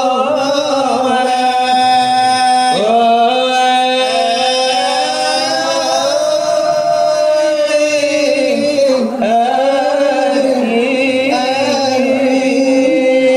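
Male selawat dulang chanting: long, drawn-out devotional lines sung in a melismatic style, each note held and wavering before gliding to the next.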